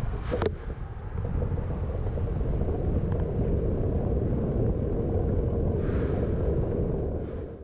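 Steady wind rumble on the microphone of a bicycle-borne camera riding along a city bike lane, with road and street noise under it. There is a brief knock about half a second in, and the sound fades out at the end.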